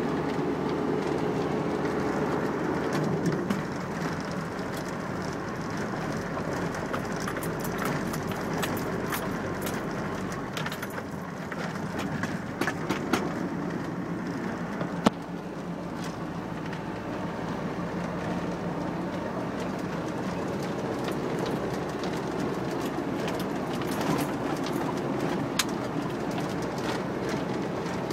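A vehicle rolling along a gravel driveway: a steady low rumble of engine and tyres, with scattered small crunches and clicks from the gravel and one sharper knock about halfway through.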